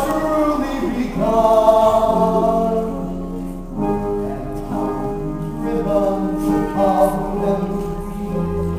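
Voices singing a show tune together with instrumental accompaniment, in long held notes.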